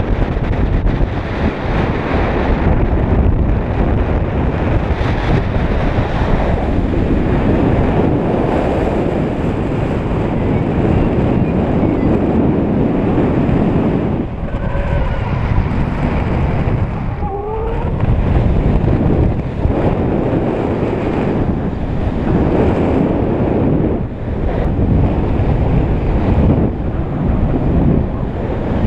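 Airflow of paraglider flight buffeting the camera microphone: a loud, continuous rush of wind noise that swells and dips every few seconds.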